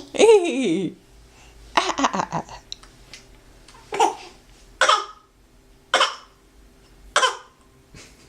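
A small child's voice: a gliding squeal at the start and a brief giggle about two seconds in, then four short, put-on coughs about a second apart.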